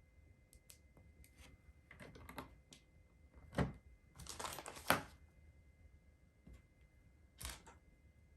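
Small plastic LEGO pieces clicking and snapping as they are handled and pressed together, in scattered sharp clicks with a longer clatter of pieces between about four and five seconds in.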